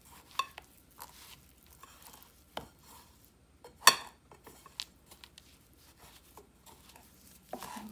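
A hand coating tilapia fillets in flour on a ceramic plate: soft patting and rubbing with scattered light knocks against the plate, the sharpest about four seconds in.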